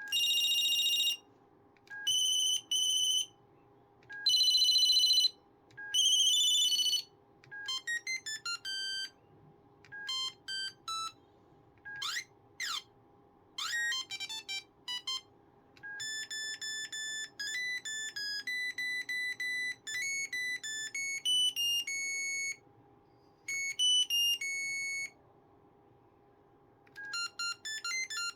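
Ericsson T20s mobile phone playing a series of its built-in monophonic ringtones: buzzy ring bursts first, then quick beeping tunes, two rising-and-falling sweeps about twelve seconds in, and a longer beeped melody, with a new tune starting near the end. A faint steady hum lies underneath.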